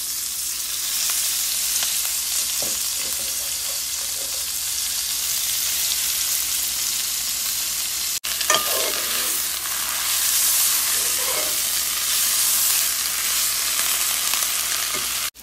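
Fresh Swiss chard leaves sizzling steadily in a hot pan as they wilt down. There is a short break about eight seconds in, then a few knocks of a spatula stirring in the pan.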